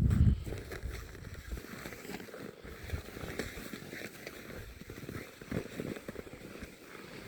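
Footsteps crunching in snow, irregular soft crunches. A loud low rumble of wind on the microphone opens the sound and dies away after about a second and a half.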